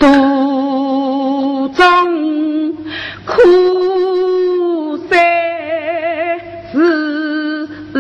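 Female Yue opera singing in the Qi school style: several sung phrases of long held notes with a wavering vibrato.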